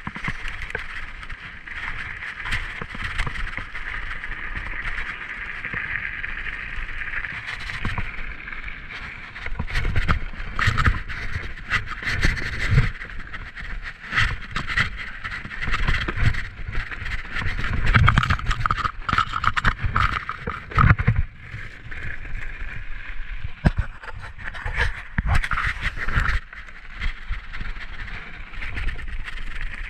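Norco mountain bike descending a rough trail of snow, ice and mud: tyres rolling with a steady rushing noise while the chain and frame rattle and knock over bumps. The knocks and thumps come heavier and louder through the middle, on the steeper, rockier stretch.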